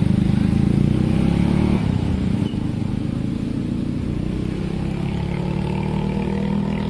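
Road traffic engines, cars and motorcycles, running and moving off at a level crossing. The sound is loudest for the first couple of seconds, then drops to a steadier, lower engine hum.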